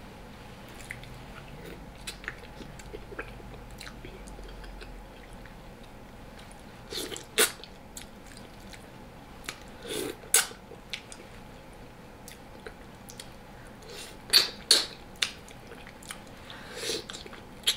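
A person chewing and eating braised oxtail close to the microphone, with scattered soft clicks and several louder wet mouth and utensil clicks.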